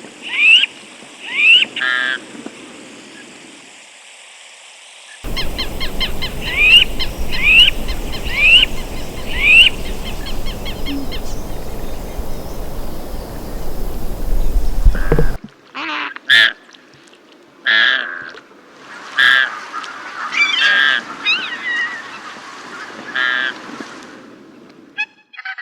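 Waterfowl calling, a run of short honking calls that rise in pitch and repeat about once a second. A low rumble lies under the calls in the middle stretch, which cuts off suddenly about fifteen seconds in.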